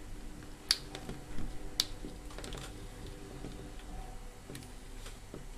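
Light handling noise of wires and a plastic adapter case: two sharp clicks about a second apart early on, with soft rustling and tapping between them, over a faint steady hum.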